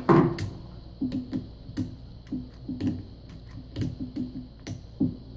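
Hard plastic clicks and knocks from a cordless drill's clamshell housing being handled and pressed together by hand, about a dozen sharp irregular taps with a short low ring in each. The loudest knock comes just after the start.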